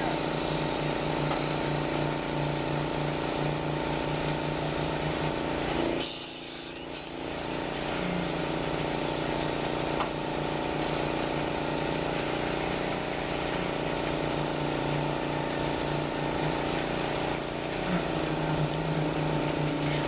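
Concrete mixer truck running steadily during a pour, its engine turning the drum as concrete slides down the chute, a steady machine drone that dips briefly about six seconds in.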